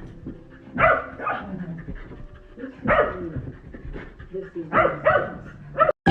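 A dog vocalizing in several short bursts, spread about a second or two apart.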